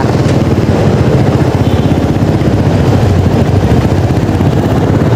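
Steady noise of a moving vehicle, a dense, fluttering low rumble with no letup.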